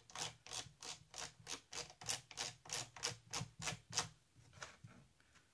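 A knob on an Akai MPC Live being turned, giving a quick, even run of clicks about five a second that grows fainter and stops near the end.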